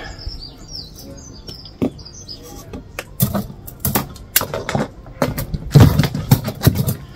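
Birds chirping in the background, then from about three seconds in a quick run of sharp clicks and knocks as a coil of bonsai wire and wire cutters are handled on a table.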